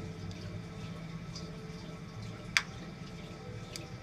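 A single sharp snap about two and a half seconds in, over the steady hum and water noise of a reef aquarium: a tiger pistol shrimp snapping its claw. A fainter click follows near the end.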